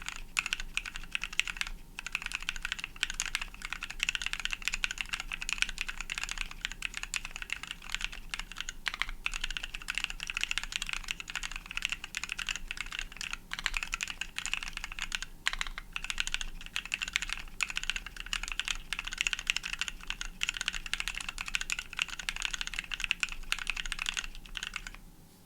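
Continuous fast typing on a custom mechanical keyboard with lubed, filmed NovelKeys Cream linear switches on a brass plate, foam-dampened, under DSA keycaps: a dense stream of clicky-free keystroke clacks that stops just before the end.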